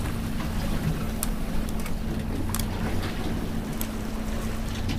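Boat's outboard motor running at a steady low hum at trolling speed, with wind and water noise around it and a few sharp ticks scattered through.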